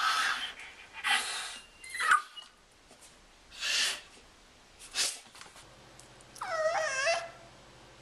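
Bull terrier giving about five short, breathy huffs over the first five seconds, with a brief whine about two seconds in. Near the end comes a wavering, pitched whine lasting under a second.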